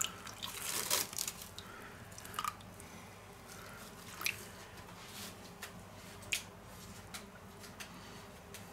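A hand squishing raw chicken pieces through buttermilk in a stainless steel bowl, with buttermilk trickling in from a carton. Wet squelches come thickest in the first second or so, then a few separate soft ones.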